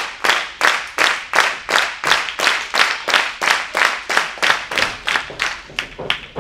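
Audience clapping in unison, a steady rhythm of about three claps a second echoing in the hall. It dies away near the end as the wrestlers lock up.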